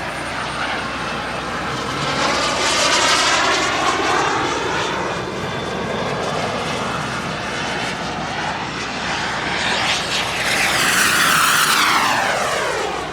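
Radio-controlled model aircraft flying past overhead, its engine sound swelling and fading twice. The louder pass is about ten seconds in, dropping in pitch as it goes by.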